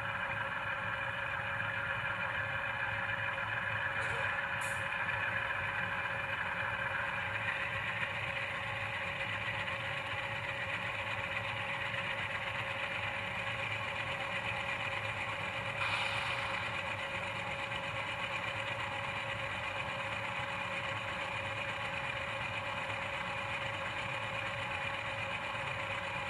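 Diesel engine sound of a GE Dash9-44CW from the model locomotive's LokSound 5 DCC sound decoder, playing steadily through its small onboard speaker with the throttle held high. A few short clicks come about four to five seconds in and again about sixteen seconds in.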